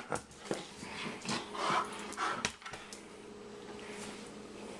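Husky puppy making short huffs and grunts as it plays at biting a toy ball, with a few light knocks in between.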